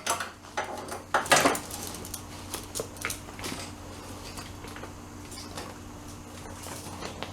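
Metal tools and small metal parts clinking and clattering, with one loud clatter about a second in and a few lighter clicks after, over a steady low hum.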